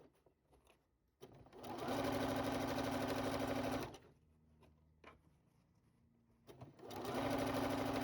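Sewing machine stitching a seam in two runs: it starts about a second and a half in, runs steadily for about two seconds and stops, then, after a pause of nearly three seconds with a few faint clicks, starts stitching again. The pause fits the machine being stopped with the needle down while the fabric is pivoted at the corner.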